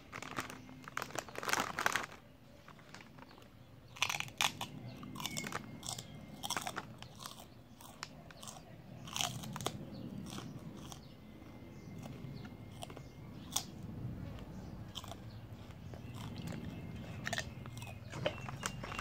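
A large brindle mastiff-type dog crunching a dry cracker-like biscuit, in irregular bouts of crisp crunches that are loudest in the first two seconds.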